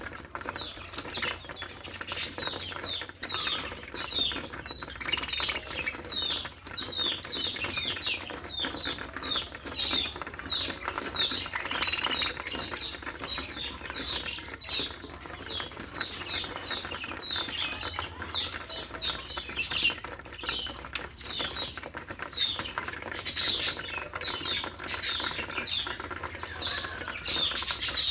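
Budgerigar chattering: a continuous run of short, quick chirps, about two a second, with scattered small clicks between them.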